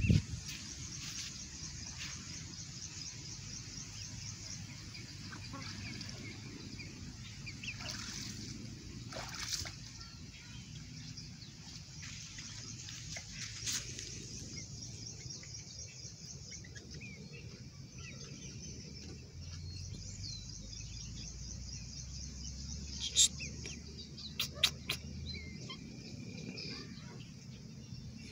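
Rural outdoor ambience: a steady background hiss with a high, fast-pulsing chirring that comes and goes, and a few sharp clicks, a cluster of louder ones near the end.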